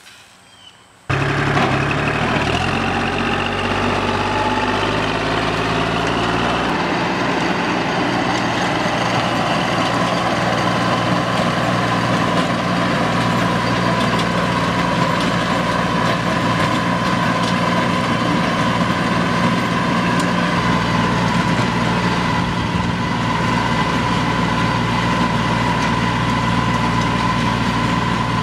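Compact tractor's diesel engine running steadily while pulling a rotary tiller through garden soil, with a steady high whine over it. It comes in abruptly about a second in.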